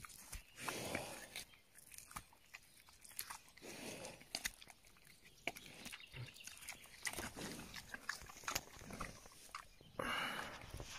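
A collared peccary biting and chewing a raw fish, with irregular wet crunches and clicks as it tears into it.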